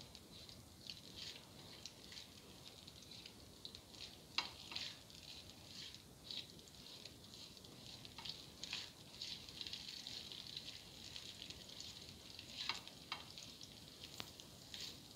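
Julienned ginger frying in a little hot oil: a faint, steady crackle with a few sharper pops, while a spatula stirs it.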